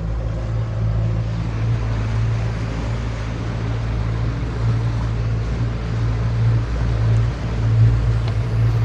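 Bass boat's outboard motor running steadily under way, a constant low hum, with rushing wind and water noise over it.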